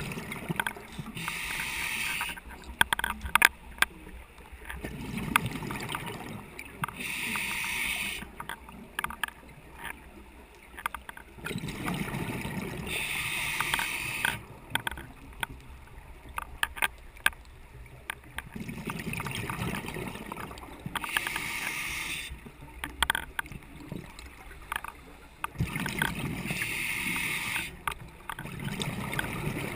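Scuba diver breathing through a regulator underwater: a hissing inhale followed by a rumbling, bubbling exhale, repeating about every six to seven seconds. A camera rattles with scattered sharp clicks throughout.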